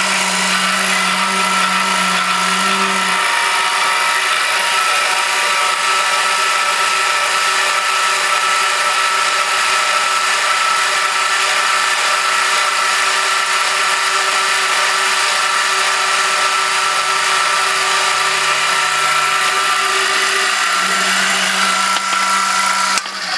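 Small metal lathe driven by a 12-volt DC motor off a battery, running unloaded with its gear train and carriage feed engaged: a steady mechanical noise with several constant tones.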